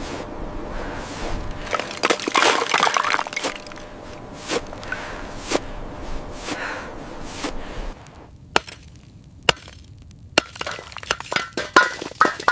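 A run of sharp cracking knocks over a rough background. After about eight seconds this gives way to single sharp cracks about a second apart, then a quick cluster of ringing, glassy clinks near the end.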